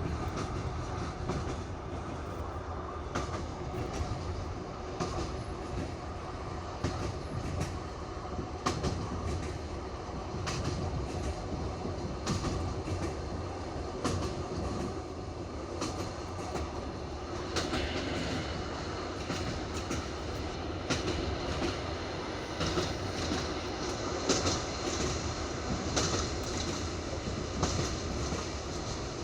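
Passenger train's wheels clattering over the rail joints of jointed track on wooden sleepers, heard from inside the carriage: steady rolling noise with repeated sharp clicks. The sound turns brighter and louder about two-thirds of the way through.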